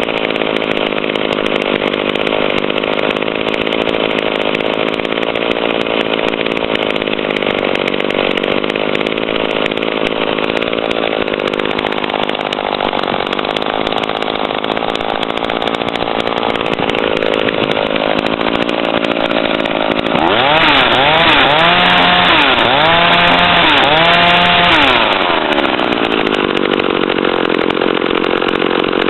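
McCulloch 320 top-handle chainsaw's two-stroke engine idling steadily, then blipped up and down in several quick revs about two-thirds of the way through before dropping back to idle.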